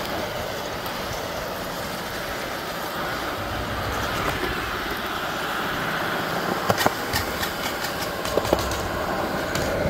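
FPV racing quadcopter's motors and propellers running steadily, a dense whirring hiss, with a cluster of sharp knocks about seven to nine seconds in.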